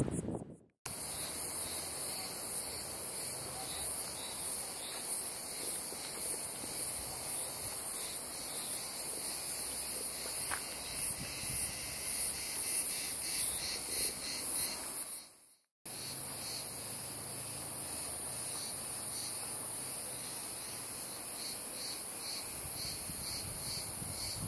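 Cicadas chirring in summer pine trees: a high, steady buzz with a pulsing edge. It cuts out briefly just under a second in and again about two-thirds of the way through.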